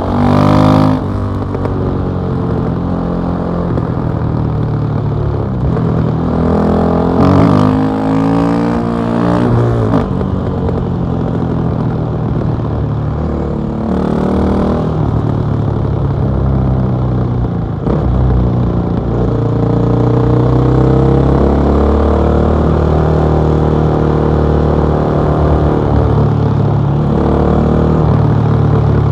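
KTM 660 SMC's single-cylinder four-stroke engine through an Akrapovic exhaust, heard on board while riding. The revs rise and drop several times in the first ten seconds, climb again about fourteen seconds in, then hold steady for the last several seconds.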